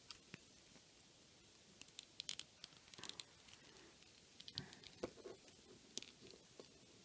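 Faint scattered clicks and scratches of hands handling a plastic S.H. Figuarts action figure as its joints are moved, in small clusters a few times.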